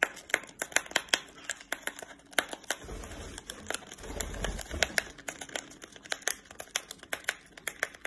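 Foil-lined tea packet crinkling in quick, irregular crackles and clicks as a lovebird grips it in its beak and tugs at it, with a couple of dull low bumps about three and four seconds in.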